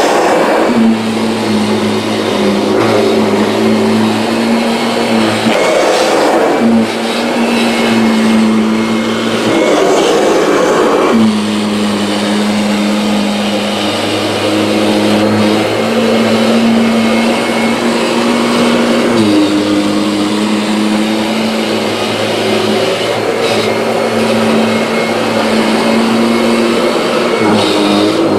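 Kirby G6 upright vacuum cleaner with a stiff brush roll running over a rug: a loud, steady motor hum whose pitch shifts slightly a few times, with noisy swells every few seconds as it is pushed back and forth.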